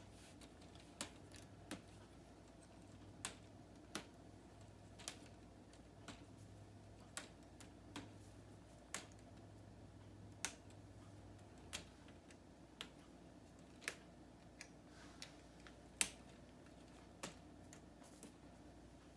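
Sharp plastic clicks of K'nex rods and connectors being handled and snapped into place, coming irregularly about once a second, over a faint low hum.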